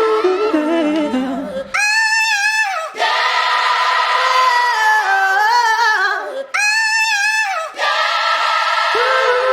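Background music built on layered sung vocals, with voices gliding and stepping between notes. A high, wavering vocal phrase comes in twice, and the opening phrase starts again near the end.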